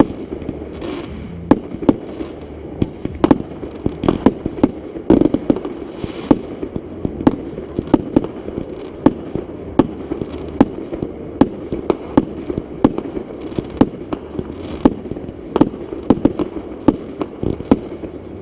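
Fireworks display: a rapid, uneven run of sharp bangs from bursting shells, several a second, over a continuous rumble.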